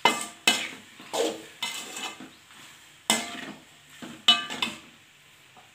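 A metal spoon stirring cooked macaroni in a metal pot, scraping through the pasta and knocking against the pot's side in a handful of ringing clanks, the loudest a little after three and four seconds in.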